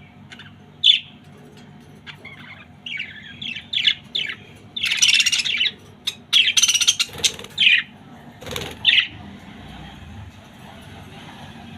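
Pet parrots calling in a run of short, harsh squawks and chirps, loudest in the middle. The calls stop about three seconds before the end.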